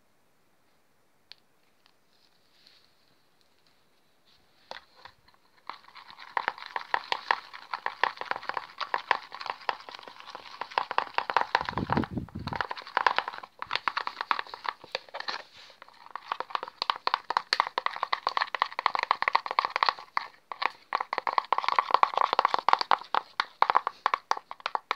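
Glue-and-shaving-foam slime being stirred with a utensil in a plastic bowl: dense, rapid wet clicking and crackling that starts about six seconds in and carries on, with a brief low bump about halfway.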